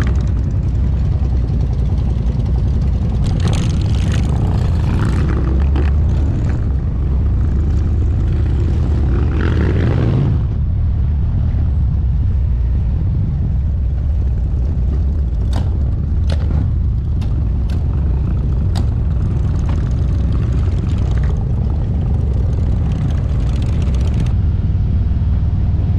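Motorcycle engine running steadily while riding, heard from the rider's own bike with wind rushing over the microphone, and several brief clicks about two-thirds of the way through.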